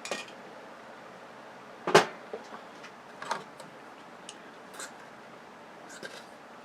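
Circuit boards from a dismantled LCD TV being handled: a sharp knock about two seconds in, then a few lighter clicks and taps.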